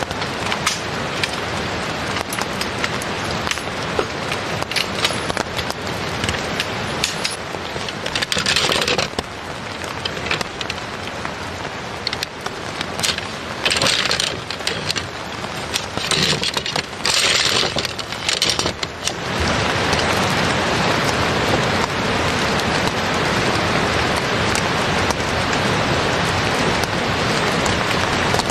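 Steady rain falling, with bursts of clacking and rattling tent poles being handled between about 8 and 19 seconds in. After that only the rain, a little louder.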